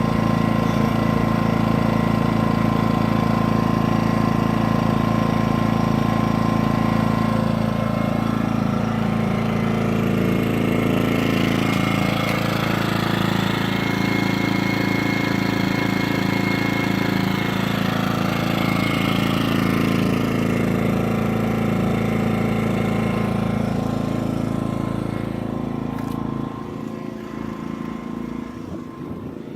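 Predator 2000 inverter generator's small single-cylinder four-stroke engine running steadily under the load of a pellet stove drawing about 8 amps. The sound gets quieter near the end.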